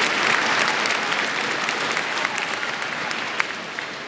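Arena crowd applauding a point just won, the clapping fading away through the last couple of seconds, with one sharp knock about three and a half seconds in.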